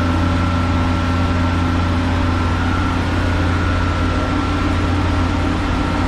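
Heavy diesel engine running steadily, a constant low hum with a faint steady high whine above it.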